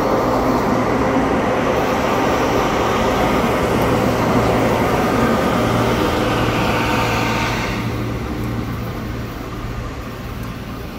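Hi-rail excavator travelling along the track, its diesel engine running and steel wheels rolling on the rail: a steady rumble and rolling noise that fades from about eight seconds in as it moves off.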